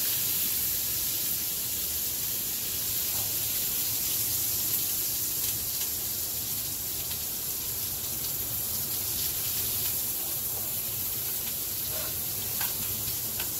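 Asparagus sizzling steadily in a hot cast-iron skillet, with a few faint clicks of metal tongs as the spears are lifted out.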